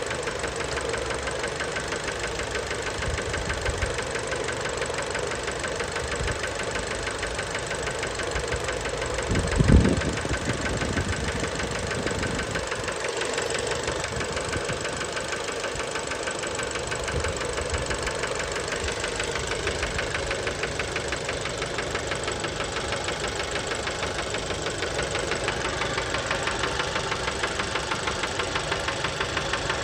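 Fiat Bravo 2's 1.4 T-Jet turbocharged four-cylinder petrol engine running steadily with a fast, even knocking rattle: rod knock from worn connecting-rod bearings. A brief low thump about ten seconds in.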